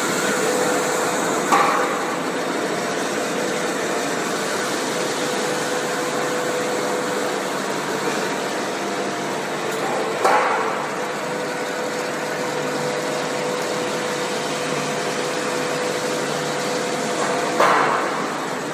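ABA blown-film extrusion machine running: a steady mechanical noise with a constant tone in it. Three short knocks stand out, one about a second and a half in, one about ten seconds in and one near the end.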